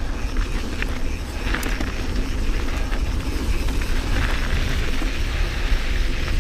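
Mountain bike riding along a dirt trail: wind rumbles on the microphone, the tyres hiss over the dirt and the bike rattles with scattered sharp clicks over bumps.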